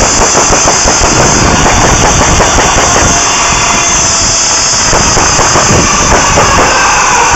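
Glock pistol firing two strings of rapid shots, one near the start and another about five seconds in, through an overloaded camera microphone that blurs the shots into a constant loud noise.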